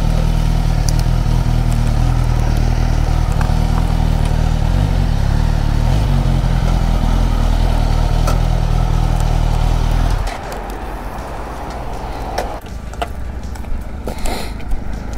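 Motorcycle engine idling steadily, then switched off about ten seconds in. A few light clicks and knocks follow.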